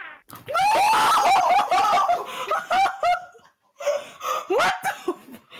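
A group of girls laughing and shrieking: a long run of quick, high-pitched laughs, then a short pause and more laughter with a rising squeal.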